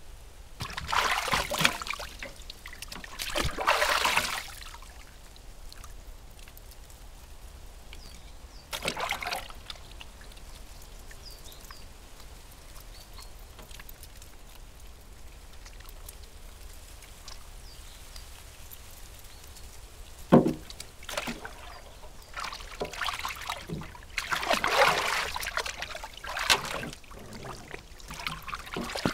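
Bathwater splashing and trickling in a bathtub as a person washes, lifting water over her arms in several separate bursts, with one short sharp splash about two-thirds of the way through and a longer spell of splashing near the end.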